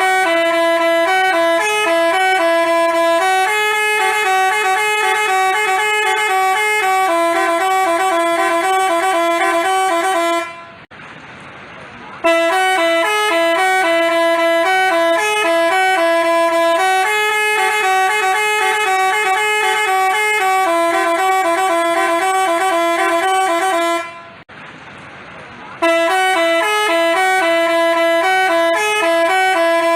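Basuri telolet bus horn playing a multi-note tooting melody. The same phrase of about ten seconds plays twice and starts a third time, with two pauses of about two seconds in which only a lower background hiss is heard.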